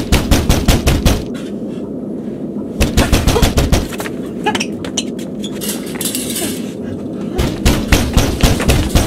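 Three bursts of rapid, evenly spaced bangs, about eight a second, over a steady low rumbling noise. The first burst comes at the start, the second about three seconds in and the third about seven and a half seconds in.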